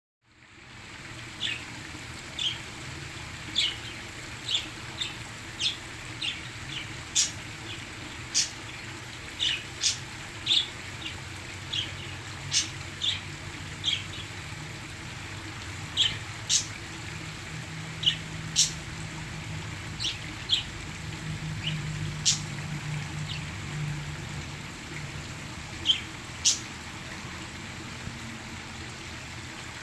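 Pet parakeets chirping in short, sharp calls, one or two a second, over a steady rush of falling water.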